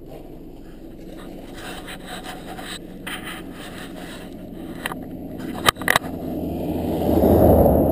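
Snow shovel scraping through packed snow and ice beside a stuck car, with a few sharp knocks about five to six seconds in and a louder rushing noise building near the end.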